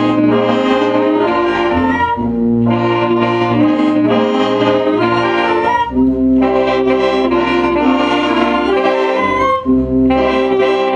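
A symphonic concert band playing live, brass and woodwinds together in full sustained chords, its phrases breaking briefly and starting again about every four seconds.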